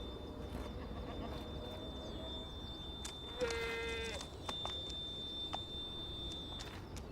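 An ibex bleats once, a short call about halfway through. A few sharp clicks sound around it over a thin steady high tone.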